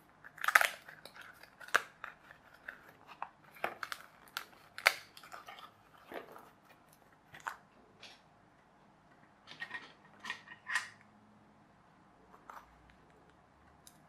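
Stiff die-cut card pieces being popped and torn out of a cardboard model-kit sheet: irregular sharp snaps and short crackles, with quiet gaps between.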